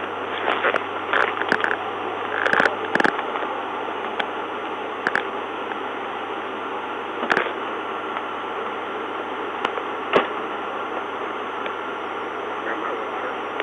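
Steady static hiss with a low hum, as from a police dashcam's audio channel, broken by scattered faint clicks and crackles.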